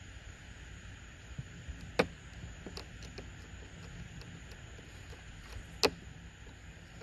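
Knife work cutting the feet off a gray squirrel on a wooden table: two sharp clicks, about two seconds in and near the end, with a few fainter ticks between them, over a steady low background hum.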